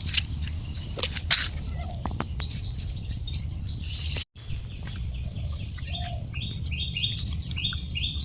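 Wild birds chirping and calling in the jungle, many short high notes, with a run of quick repeated notes in the second half, over a steady low rumble. The sound drops out briefly about four seconds in.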